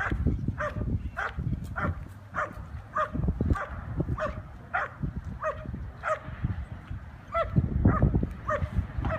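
An IPO protection dog barking at the helper in a steady rhythm, about two barks a second, with a short break near the end. The dog is holding the helper at bay and barking.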